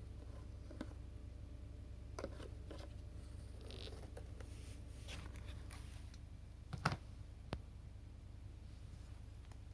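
Light clicks, taps and rustles from a cordless vacuum cleaner's plastic parts being handled. The loudest is a sharp double click about seven seconds in, heard over a steady low hum.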